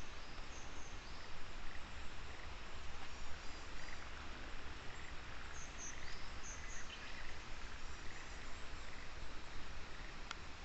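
Outdoor ambience: a steady noisy hiss with a low rumble, and small birds chirping briefly a few times.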